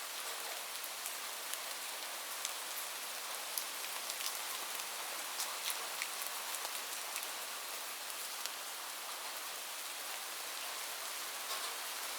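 Steady rain with a dense hiss and many scattered individual drops ticking sharply on a hard surface, such as a roof.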